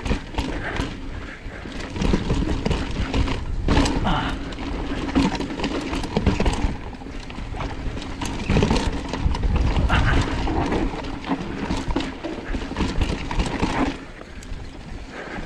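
Enduro mountain bike descending a rough dirt trail: tyres crunching over dirt and rocks, with the bike knocking and rattling over bumps in an irregular clatter. It goes quieter briefly near the end.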